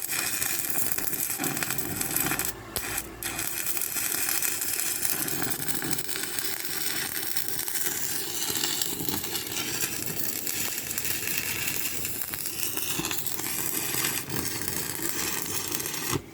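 Electric arc welding at 150 amps with an MBI 250-amp welding machine: the arc runs steadily, breaks off briefly about two and a half seconds in and restrikes, then cuts off just before the end.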